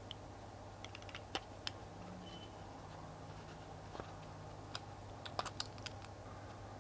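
Scattered light clicks and taps of a coin proof set's box and capsules being handled, with a small cluster of clicks near the end, over a faint steady low hum.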